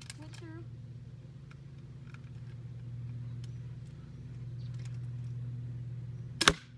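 A single sharp crack of an airsoft gun shot about six and a half seconds in. It sounds over a steady low hum of vehicle traffic that swells and fades.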